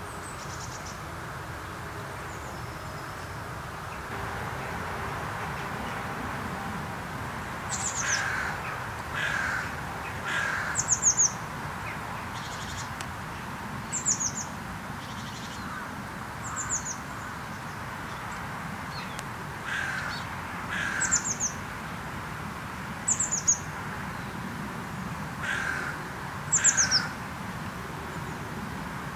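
Carrion crows cawing now and then, single caws and short runs, over a steady background hiss. Sharp, high, falling chirps in quick groups of two or three come in between and are louder than the caws.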